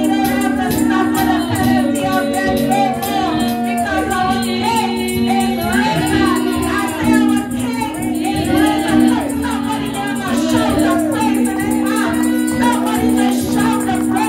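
Christian worship music: a woman singing lead into a microphone over sustained chords and a steady, light percussion beat.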